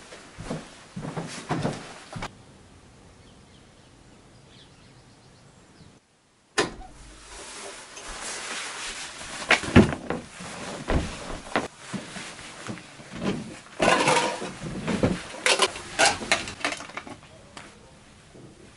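Footsteps going down a staircase, then after a quiet pause a long run of knocks, clunks and rustling as objects are handled and rummaged through.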